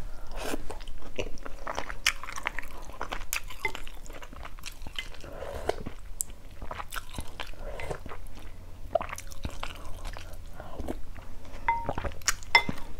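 Close-up chewing of chicken liver and gizzard from a bowl of pho, with many wet mouth clicks and smacks. Near the end, a few short clinks of chopsticks and a spoon against a glass bowl.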